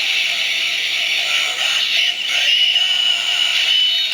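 Kamen Rider Necrom's DX Mega Ulorder toy bracelet playing its electronic sound effect: a synthesized voice over electronic music from the toy's small speaker, with a steady high tone held in the second half.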